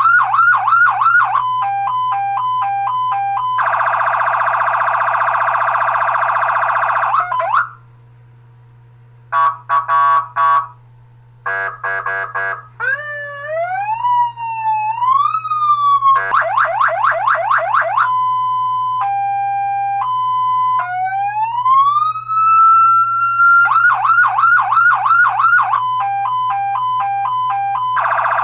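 Electronic fire-truck siren cycling through its tones: fast yelps, high-low two-tone, rising wails and a long steady horn-like blast, with two short pauses. The pattern starts over about two-thirds of the way in.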